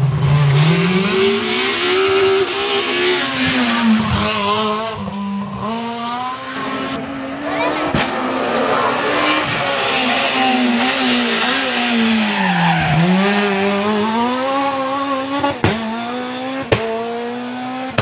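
Renault Clio S1600 rally car's 1.6-litre four-cylinder engine revving hard at full throttle, the revs falling and climbing again through gear changes and corners. Two sharp bangs come near the end.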